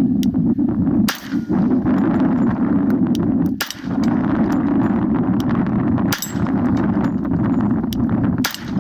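Four single gunshots about two and a half seconds apart, slow aimed fire at steel targets, with a clang of struck steel. A steady low rumble sits underneath.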